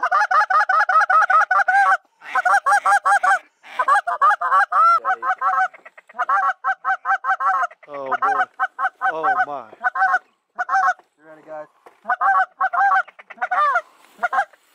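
Loud honking waterfowl calls in quick, evenly repeated strings, several notes a second, in bursts broken by short pauses.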